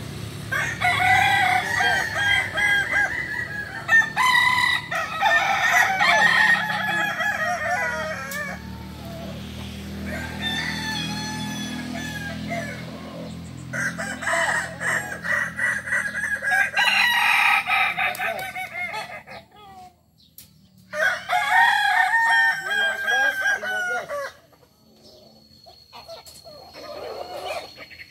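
Several Kukuak Balenggek roosters crowing in turn and overlapping, each crow a long call broken into many stepped notes, the breed's tiered crow. A low steady hum runs under the first half, and the crowing falls away near the end.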